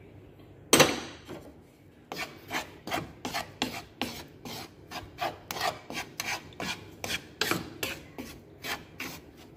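Wooden spatula scraping and stirring a dry flour, milk-powder and sugar mixture across a stainless steel pan, in quick even strokes about three a second. A single sharp knock, the loudest sound, comes a little under a second in, before the scraping starts.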